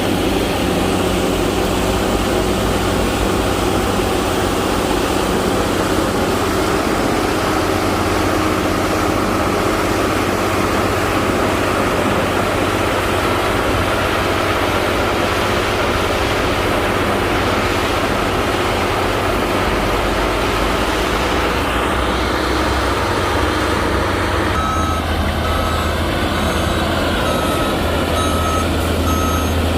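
Heavy diesel engine of a road-construction machine, most likely the motor grader, running steadily under load. Near the end a reversing alarm starts beeping at a steady pace over the engine, the sign that the machine is backing up.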